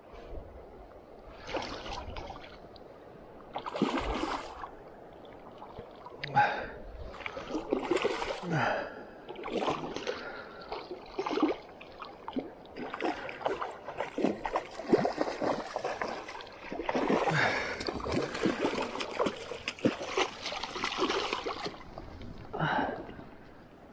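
A hooked Atlantic salmon splashing and thrashing at the surface in shallow water by the bank, in repeated irregular bursts with short lulls between them, as it is brought in to be landed.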